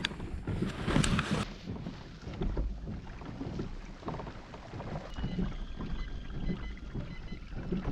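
Kayak moving on the water, with water splashing and lapping against the hull and wind on the microphone.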